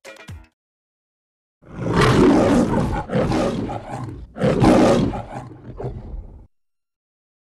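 A teenage boy yelling loudly at close range: three long shouts starting about a second and a half in, then a shorter, fainter one.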